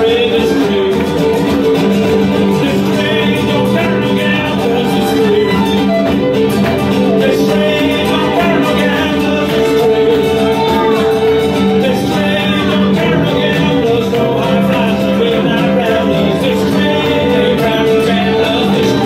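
Live acoustic folk band playing an upbeat song: bowed fiddle and strummed acoustic guitar, with singing.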